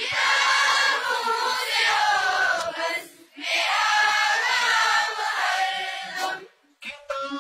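A chorus of many voices singing a line of an Urdu prayer (dua) together in two long phrases, answering the leader's solo line.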